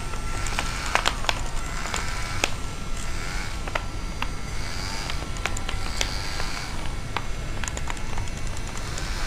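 A line-following robot's two small geared DC motors whirring in short bursts as it steers, each burst rising and falling in pitch, with irregular clicks and crackles throughout.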